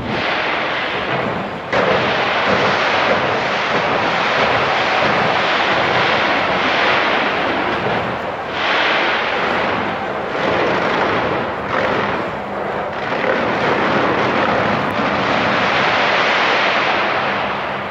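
Fireworks display going off, dense bursts and crackling running together into a continuous din that comes in waves with short lulls, and dies down near the end.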